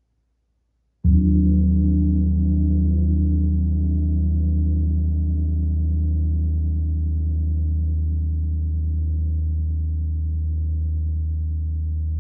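A large Starchild gong struck once with a felt mallet about a second in, then ringing on as a deep, sustained hum with higher overtones that waver, fading only slowly.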